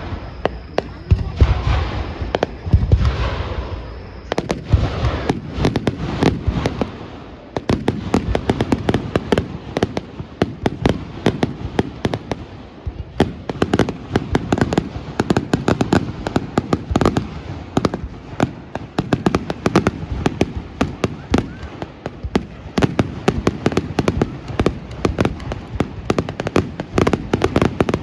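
Aerial fireworks display: deep booms of shells bursting in the first few seconds, then a dense, rapid rattle of sharp crackling bangs, many per second.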